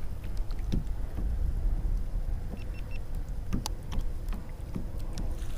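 Steady low wind rumble on the microphone, with scattered light knocks and small water splashes around a kayak.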